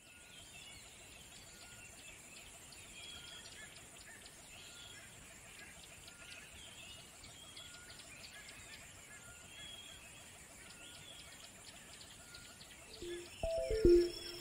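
Faint outdoor ambience of birds chirping in short, repeated calls over a steady high hiss. About a second before the end, loud plucked music notes come in.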